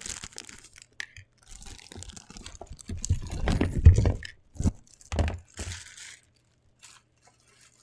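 Packaging being handled and pulled apart while unpacking a multi-piece anime figure: irregular rustling and crinkling with small clicks and knocks, loudest for about a second around the middle, then a few separate knocks.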